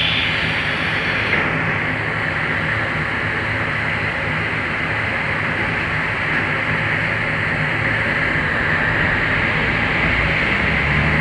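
CPTM electric commuter train 1115 growling steadily: a continuous low hum under a steady rushing noise, swelling slightly near the end. A higher hiss fades out in the first second or so.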